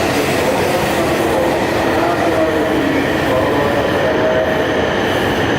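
Shinkansen train moving along the platform of the underground station: a steady, loud rumble of wheels on rail with several held whining tones that shift a little in pitch.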